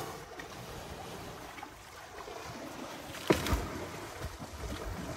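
Wind buffeting a phone microphone at close range, with one sharp knock a little over three seconds in.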